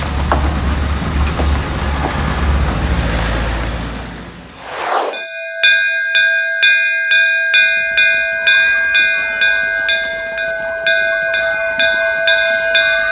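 A vehicle engine rumbles past, then after a cut about five seconds in, a school bell is struck over and over, about two strikes a second, each stroke ringing on with a steady metallic tone.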